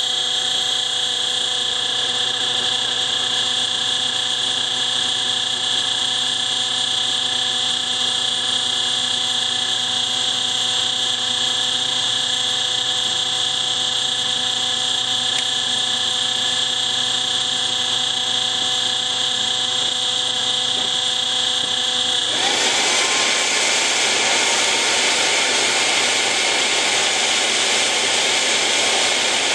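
Leaf blower running steadily, blowing air into a homebuilt turbocharger turbojet with a steady mix of whining tones. About 22 seconds in, the propane combustion lights and a louder rushing roar takes over, with a whine rising in pitch as the turbo spools up.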